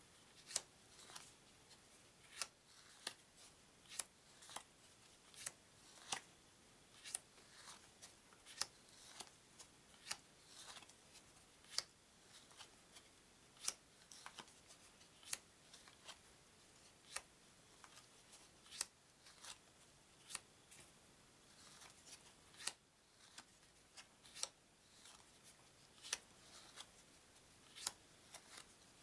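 Game cards being slid off a deck one at a time and set down, giving irregular sharp card snaps, roughly one or two a second, with faint paper sliding between them.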